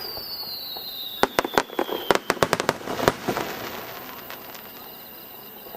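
Aerial fireworks bursting in a rapid run of sharp cracks between about one and three seconds in, while a high whistle slides down in pitch. The crackle then fades away.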